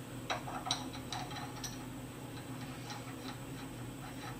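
Light, irregular clicks and taps of metal parts being handled as the lathe's arm is put back on, several in quick succession over the first second and a half and then fainter and sparser, over a steady low hum.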